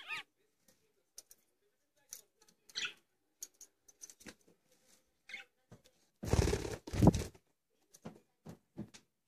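Budgerigars bathing in a stainless-steel drinking bowl: wings flapping and water splashing in short scattered bursts, with a few short chirps. The loudest is a burst of flapping and splashing lasting about a second, some six seconds in.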